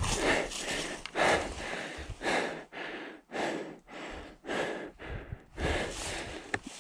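A person breathing hard, panting in and out about once a second.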